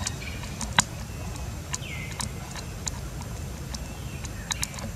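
A young macaque biting and chewing a ripe mango: scattered sharp wet clicks and smacks, the loudest about a second in. A short chirp about two seconds in, over a steady low rumble.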